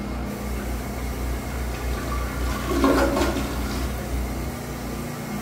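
Early-1990s Kohler Wellworth Waterguard toilet flushing: water swirling down the bowl, with a louder rush about three seconds in as the bowl empties, then water running steadily as it refills.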